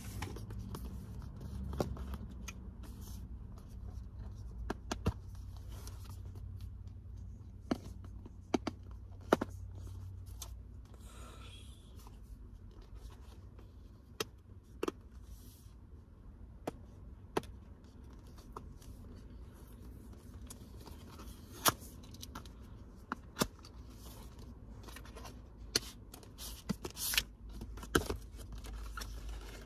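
Cardboard and paper packaging of an Apple Watch box being worked open by hand: scraping, rustling and tearing with scattered sharp clicks, over a low steady hum.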